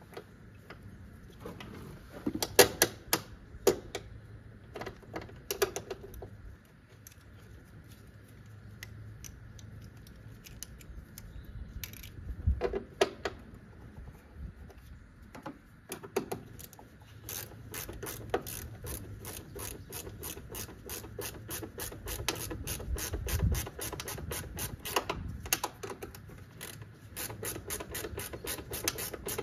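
Hand socket ratchet clicking in a steady run of quick strokes through the second half while a bolt is run down. Before that come scattered knocks and clanks of tools on metal.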